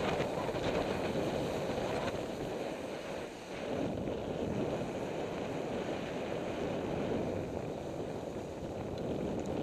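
Steady rush of wind over the microphone mixed with the hiss and scrape of skis gliding on packed, groomed snow.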